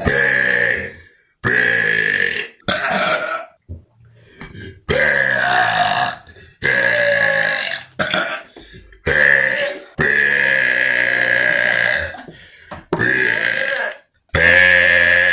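Human burps, loud and one after another: about ten in a row, mostly short, the longest drawn out for about two seconds.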